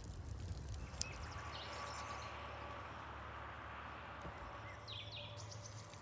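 Quiet countryside ambience with a steady low rumble, a few sharp crackles from wood embers in the first second, and brief bird chirps, the clearest about five seconds in.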